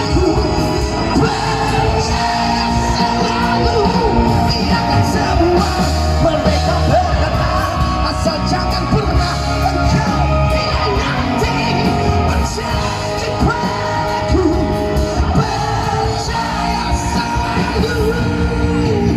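Live amplified rock band music, with guitar and voices singing and yelling along over it.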